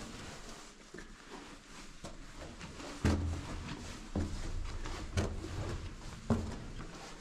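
Footsteps: slow, heavy steps about one a second, starting about three seconds in.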